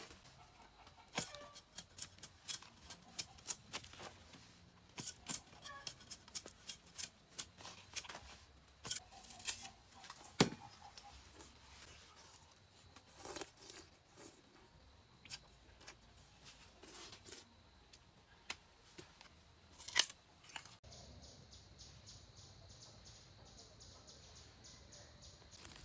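A knife peeling the hard rind off a stalk of purple sugarcane: irregular sharp cuts and scrapes, several a second, with a louder crack twice. Near the end the cutting stops and only a steady faint hiss remains.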